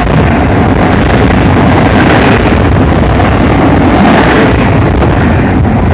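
Double-stack container train cars passing close by at speed: a loud, steady rumble of wheels on rail and rattling cars.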